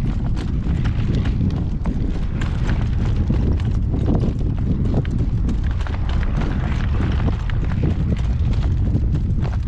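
Strong wind buffeting the microphone in a loud, steady low rumble, with a horse's hoofbeats at a trot.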